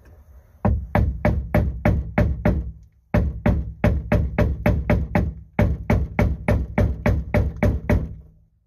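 Hammer blows on the rusted, seized steering shaft of an old boat helm, about three a second in three runs with short pauses between them. The shaft is jammed by a rusted-in keyway and does not budge.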